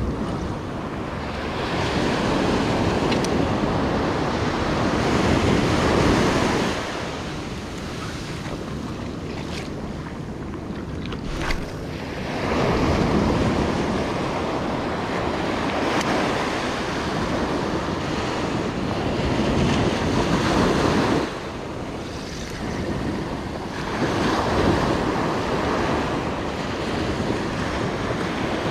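Ocean surf breaking and washing up a sandy beach, the roar of the waves swelling and ebbing in long surges every several seconds.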